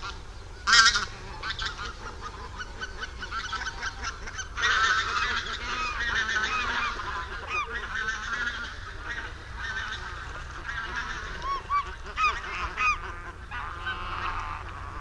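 A flock of barnacle geese and other geese calling: a chorus of many short, overlapping honks. There is a loud burst of calls about a second in, and the calling grows denser from about four and a half seconds.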